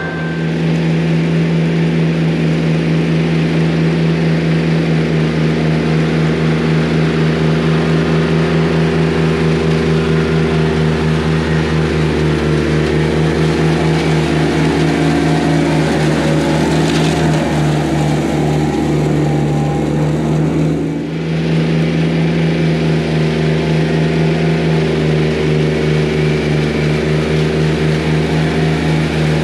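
A straw-blowing bale chopper and the engine driving it running steadily under load, shredding straw and blowing it out the spout, with an even pulse of about three beats a second. The sound dips briefly about twenty seconds in.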